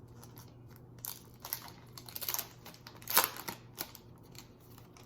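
A foil Pokémon booster pack being opened: a run of crinkling and tearing of the wrapper, in several short bursts with the loudest a little after three seconds.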